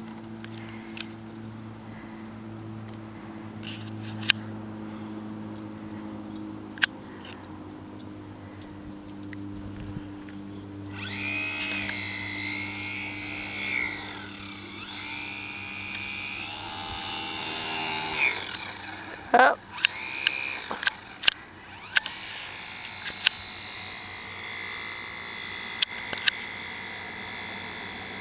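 The motor of an RC plane spins up about eleven seconds in to a loud, high whine that rises and dips in pitch with the throttle for several seconds, then drops away. Several sharp knocks and clicks follow, and a fainter whine carries on after them. Before the motor starts there is only a low steady hum with a few scattered clicks.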